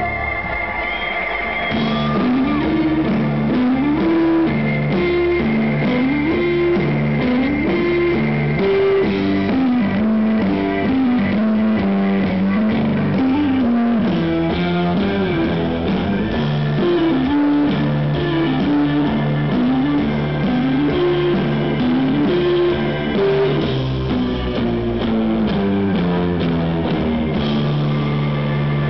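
A live rock band playing. An electric guitar repeats a riff that climbs and falls in steps, over steady low notes and drums.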